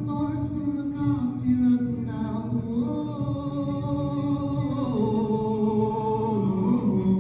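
A cappella vocal group singing long held chords that change pitch a few times.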